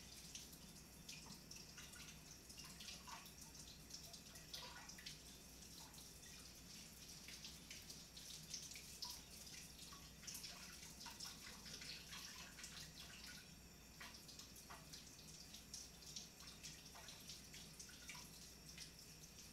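Faint running water from a kitchen faucet, with small irregular splashes and taps as potatoes are scrubbed with a brush under the stream.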